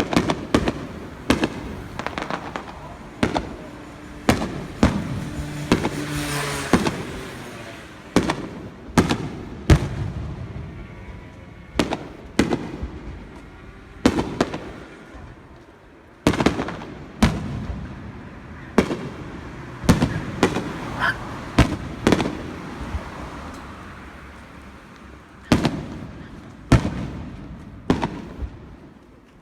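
Aerial fireworks display: shells bursting one after another at irregular intervals, each sharp bang trailing off in an echoing rumble, with a burst of crackling about six seconds in.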